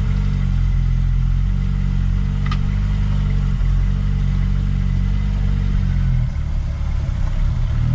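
1969 Reliant Regal three-wheeler's small four-cylinder engine running steadily, just started for its first trip. About six seconds in the engine note drops and goes uneven for a couple of seconds, then steadies again.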